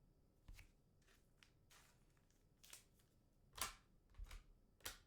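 Faint rustling and sliding of trading cards being handled, in about six short brushes. The loudest brush comes about three and a half seconds in.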